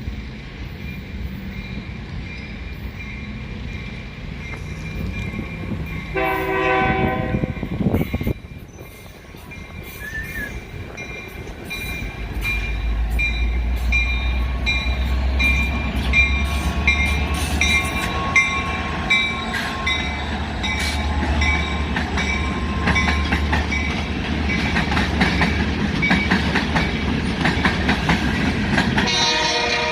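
EMD GP40-2 diesel-electric locomotive with a 16-cylinder two-stroke engine approaching: its horn sounds once about six seconds in. The engine's low rumble then builds, with wheels clicking over rail joints, and the horn sounds again at the very end.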